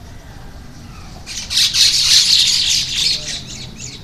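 Birds squawking and chirping in a dense, high-pitched burst that starts about a second in, lasts about two seconds and fades out.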